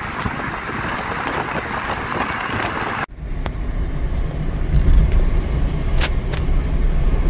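Road noise of a moving car heard from inside: a steady rush of wind and tyres, then, after a sudden cut about three seconds in, a lower steady rumble with a few short ticks.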